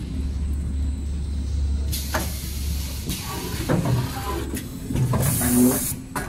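Two-head napkin tissue packing machine running: a steady low motor hum, with mechanical knocks and clatter from about two seconds in. A little after five seconds comes a loud burst of compressed-air hiss from its pneumatics.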